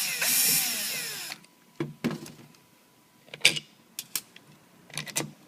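Power drill/driver running as it backs out a fastener, its motor pitch falling as it winds down and stops about a second in. Then scattered light clicks and knocks of metal parts being handled.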